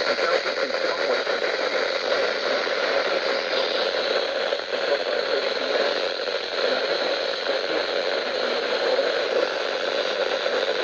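Weak, noisy radio reception: steady static hiss that runs without a break, with perhaps a voice buried too deep to make out.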